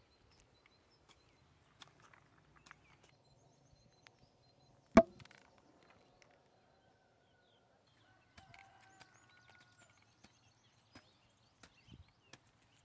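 A single sharp knock with a short ring about five seconds in, set among faint scattered taps and ticks of hand planting in loose soil.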